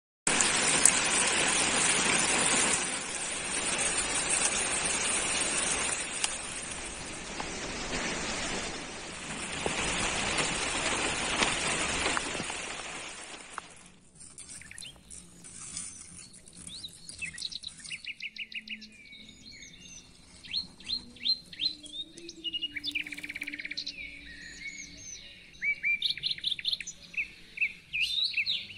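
A steady rushing noise fills the first half and stops suddenly about halfway. Then small birds chirp and twitter in quick runs of high notes, more and more often toward the end.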